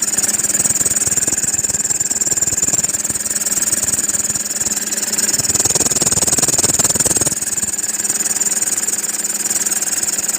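Toyota Fortuner engine running, with a steady high-pitched squeal over it from the serpentine belt. The squeal is the sign of a slipping or worn serpentine belt.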